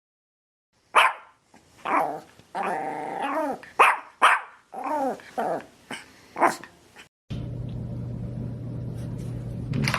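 A dog barking, with short sharp barks mixed with longer drawn-out calls that slide down in pitch. About seven seconds in it cuts off abruptly to a steady low hum.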